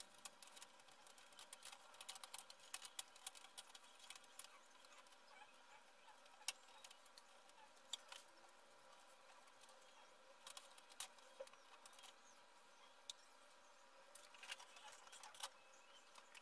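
Faint, scattered small clicks and taps from hands working at the edge of an LED TV's backlight panel and reflector sheet, some single and some in short clusters.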